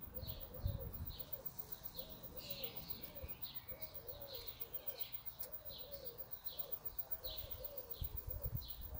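A dove cooing in a phrase of several notes, repeated over and over, with another small bird chirping about twice a second in the background.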